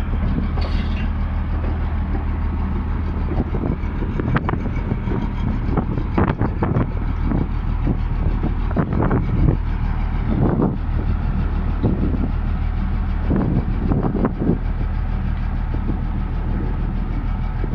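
Komatsu bulldozer's diesel engine running steadily, with irregular clanks and knocks through the whole stretch.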